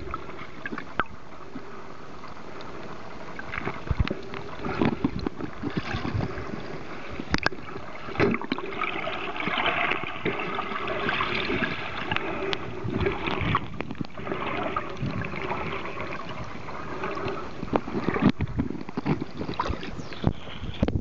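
Muffled water noise picked up by a camera held underwater: a steady hiss with bubbling and many scattered knocks and clicks. Splashing of a person wading near the end.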